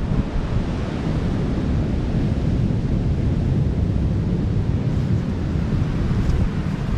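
Wind buffeting the microphone: a steady low rushing noise with no distinct events.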